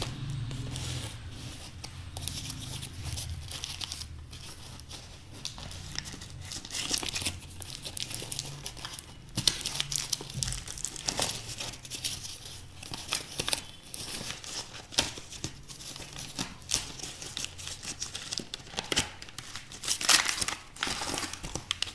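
Packing tape and plastic wrapping being torn and peeled off a cardboard parcel: irregular crinkling and tearing, with sharper tears now and then, the loudest near the end.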